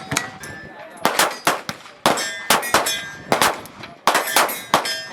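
Pistol fire on a range, about ten shots in quick strings, with steel targets clanging and ringing as they are hit.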